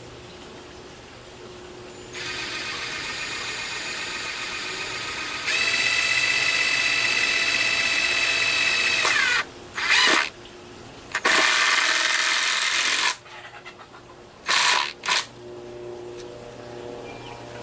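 Power drill running in bursts: a steady whine that starts about two seconds in and steps up to full speed, sags in pitch as it stops, then a short burst, a second run of about two seconds, and two quick blips.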